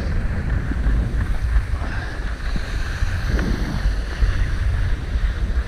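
Wind buffeting an action camera's microphone in a steady low rumble, over the hiss of skis sliding on packed snow.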